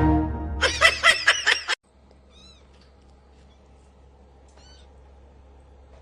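A cat meowing about five times in quick succession over the tail of a music track, cutting off abruptly a little under two seconds in. After that there is a quiet steady hum with two faint, brief high chirps.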